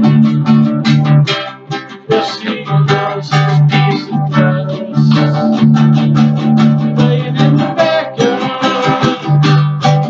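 Guitar strummed in quick, even strokes over ringing low notes, an instrumental passage with no singing, dipping briefly in loudness a little under two seconds in.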